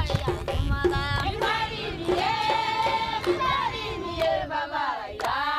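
A group of voices singing together, some high-pitched, with notes that bend and a long held note about halfway through.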